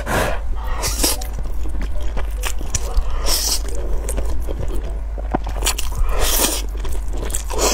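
Close-up eating sounds of cheese-topped spicy instant noodles: several loud, wet slurps as strands are drawn into the mouth, with chewing in between.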